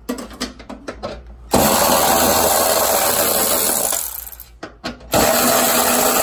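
Milwaukee cordless electric ratchet on a socket extension, run twice for about two and a half seconds each, spinning nuts off the hybrid battery pack's case. A few light clicks come before the first run.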